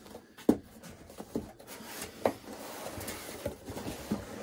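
Cardboard mailer boxes being handled and opened: a few sharp snaps and knocks, the loudest about half a second in, with faint scraping of cardboard between them as the tucked lids are pulled free.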